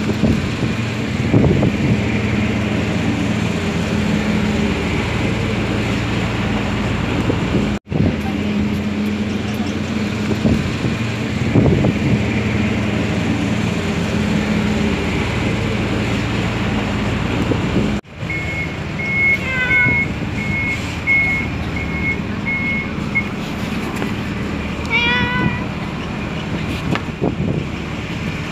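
Calico cat meowing a few times, briefly, in the second half, over the steady low hum of an idling vehicle engine.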